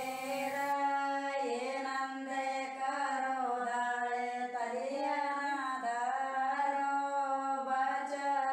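Background music: a woman's voice singing a slow melody in long held notes that glide gently from pitch to pitch.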